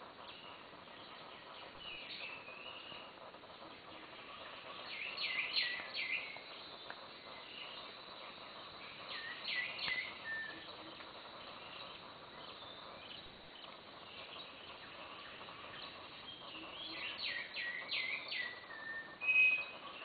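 Borneo rainforest ambience: birds calling in short clusters of high chirps and whistles every few seconds over a steady background of forest noise. The loudest call is a brief clear whistle near the end.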